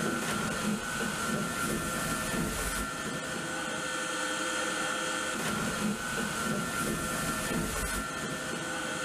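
Waste shredder in a ship's trash room running: steady mechanical noise with a constant whine, and a low rumble that drops away about three seconds in.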